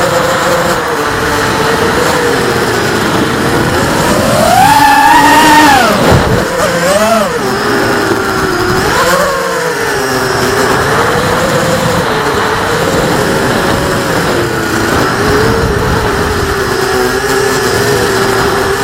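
Racing quadcopter's four Cobra 2100kV brushless motors spinning DYS 5x4.5 three-blade propellers: a steady whine that climbs sharply in pitch on a throttle punch about four seconds in, drops suddenly a couple of seconds later, swells briefly twice more, then holds steady with small wavers in pitch.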